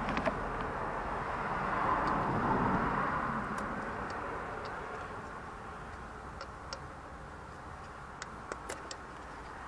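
Scattered light clicks and ticks of pliers and gloved fingers working at a diesel engine's glow plug connectors, with several small clicks close together near the end, over a steady background rush.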